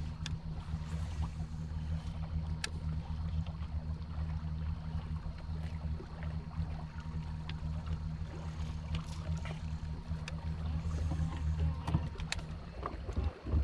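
Steady low hum of a bass boat's electric trolling motor running as the boat creeps along, briefly dropping out near the end, with a few faint clicks of fishing tackle.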